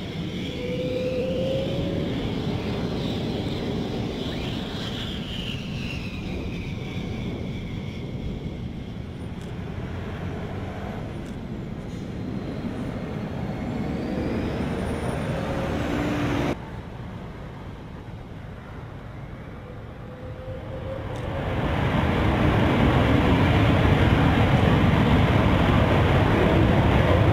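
F-16 fighter jet engines taxiing, with a high turbine whine that glides up and down as the jets roll past. From about 21 s the engine noise grows much louder into a dense, steady rumble as a pair of F-16s on the runway throttle up for takeoff.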